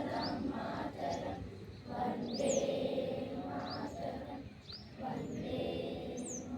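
A group of children's voices reciting or singing in unison, in phrases about two seconds long, while small birds chirp repeatedly with short high sweeping calls.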